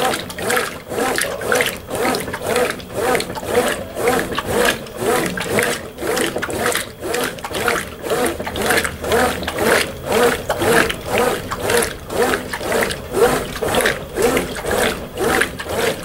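Brastemp Ative! Smart Sensor 11 kg top-loading washing machine (BWP11) agitating a load of clothes in soapy water. The agitator swings back and forth in a steady rhythm of about two to three strokes a second, each stroke a whir of the drive with churning water; this is the machine's initial wash agitation.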